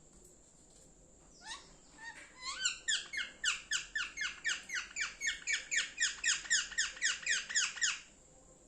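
Pet parrot chirping: a single call about a second and a half in, then a fast run of short, falling chirps, about four a second, that stops shortly before the end.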